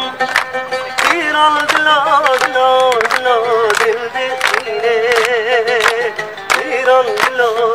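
Kurdish song playing: a wavering, trilled melody line over a regular drum beat.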